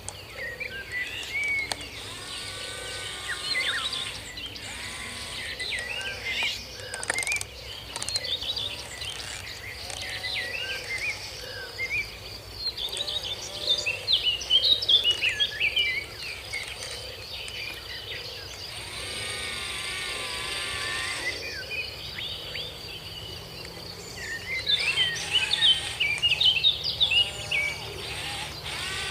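Several birds chirping, with many short rising and falling calls in clusters, over a steady high-pitched hiss.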